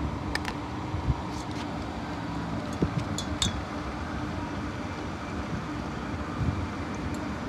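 Steady low outdoor rumble and hum, with a few brief high clicks in the first half.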